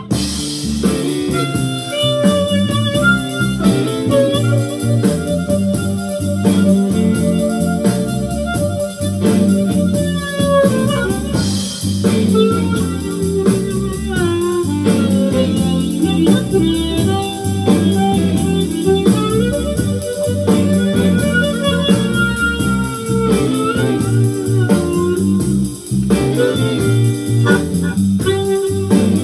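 Electric blues recording: a harmonica lead plays bent, wavering notes over a full band backing.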